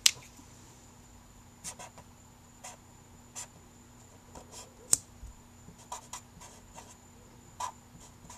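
Expo dry-erase marker writing by hand: short, scattered scratchy strokes of the felt tip on the surface. A sharp click comes right at the start and another near the middle.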